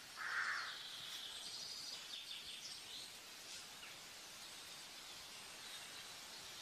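Faint outdoor background hiss with birds chirping now and then. One short bird call comes just after the start.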